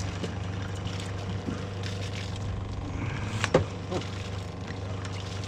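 A boat's outboard motor running steadily at idle, with one sharp knock about three and a half seconds in.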